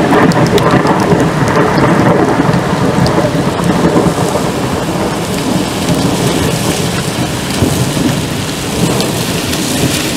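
Rolling thunder rumbling and slowly fading, over steady rain falling on wet pavement.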